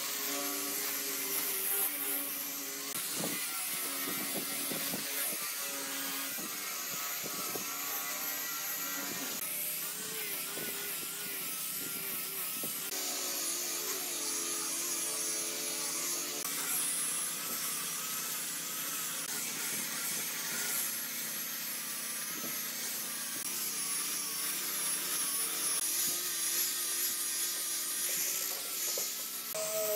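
Electric angle grinder with a sanding disc running against a cured epoxy-resin and wood tabletop: a steady motor whine that wavers in pitch as the disc is pressed and moved, over the rough hiss of abrasive on resin.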